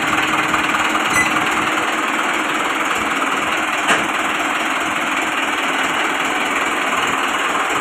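Mahindra Arjun 555 tractor's diesel engine running steadily, with a single short click about four seconds in.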